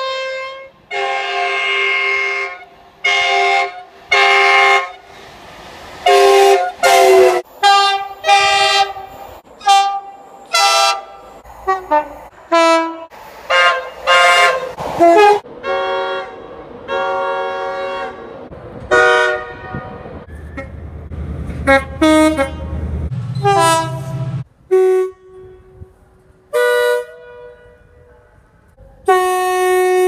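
Two-tone train horns sounded again and again: a rapid run of short blasts, many stepping between a high and a low note, from several trains in turn. About twenty seconds in, the low rumble of a passing train runs under one longer blast.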